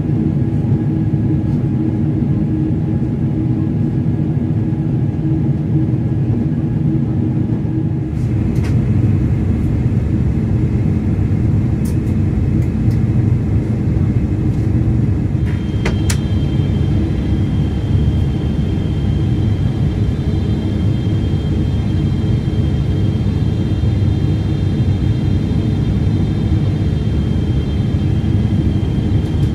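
Steady roar of a Boeing 777-300ER's GE90 engines and rushing air, heard inside the cabin beside the wing during descent on approach. The hum shifts about eight seconds in, a few faint clicks follow, and from about halfway a high steady whine joins the roar.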